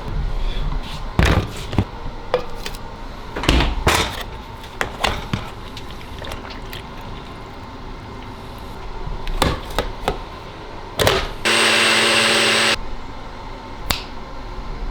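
Dishes and food containers being knocked and set down, a string of sharp clatters and taps. Near the end comes a loud, steady, buzzing tone lasting about a second, the loudest sound here.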